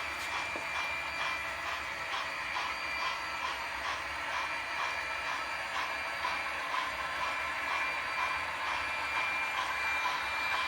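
HO scale model freight train running on the layout, pulled by consisted model diesel locomotives: a steady mechanical whine with a few held tones and a regular light clicking, about three ticks a second.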